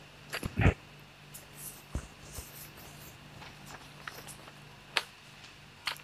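Quiet small room with a steady low hum, light paper handling and a few short clicks and knocks; a brief louder sound comes just over half a second in.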